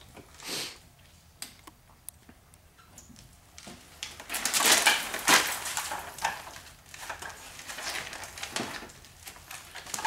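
Plastic window tint film crackling and rustling as it is pulled off the car window glass and handled, loudest about four to six seconds in, with scattered clicks and taps and a short hiss about half a second in.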